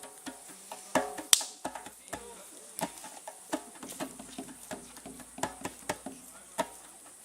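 Campfire crackling: wood popping in irregular sharp snaps and knocks, with one louder pop about a second in.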